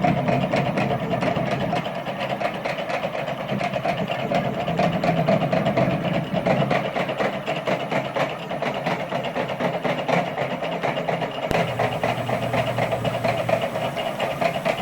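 Stepper motors of a DIY CNC router, 400 oz-in bipolar motors on THB6064AH drivers, driving the lead screws through fast back-and-forth moves: a whining tone that shifts pitch as the axes change speed and direction, over a dense clatter of the machine frame rattling. About three-quarters of the way through, the mix changes as the motion changes.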